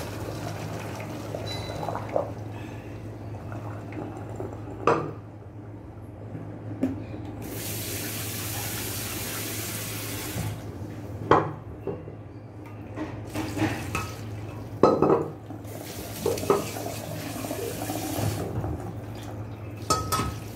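Hot water and boiled peanuts pour from a stainless steel pot into a basin in a sink. A kitchen tap runs hard into the emptied pot for a few seconds about a third of the way in, and the metal pot knocks against the sink several times as it is rinsed and tipped out.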